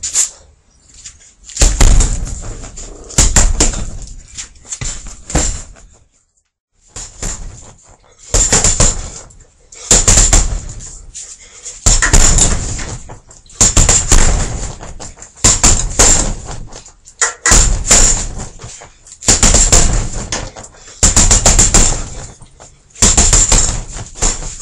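Punches landing on a hanging heavy punching bag in quick flurries: a burst of several thuds about every two seconds, with a short pause about six seconds in.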